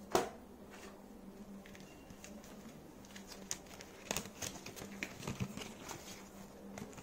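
Paper being handled: a sharp slap as an instruction booklet is put down on cardboard just after the start, then crisp rustling and crinkling of a paper leaflet from about three seconds in.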